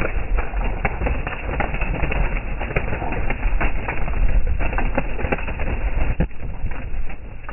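A flock of pigeons taking off close around the microphone: a dense, rapid clatter of many wings flapping and clapping, thinning out near the end.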